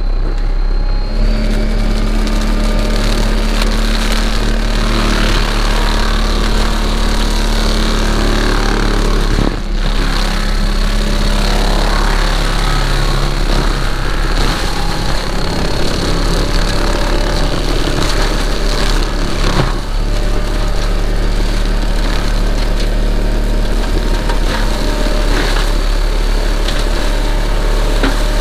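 John Deere 333G skid steer running hard with its mulcher head spinning. A steady engine drone is carried under a high, even whine, with scattered sharp cracks as the head grinds through brush and wood.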